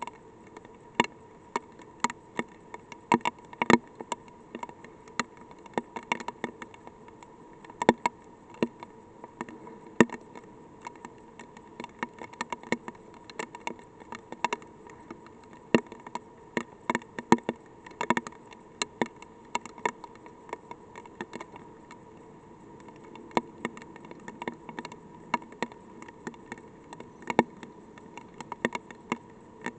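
Light rain: single raindrops ticking irregularly on the probe's casing at uneven loudness, over a steady hum.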